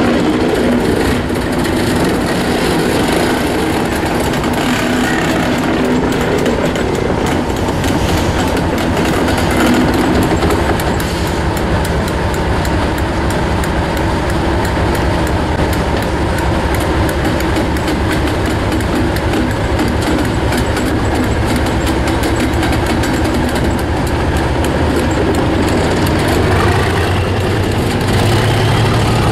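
Class 37 diesel-electric locomotive's English Electric V12 engine running steadily as the locomotive moves slowly past and draws away, with wheel and rail noise over it.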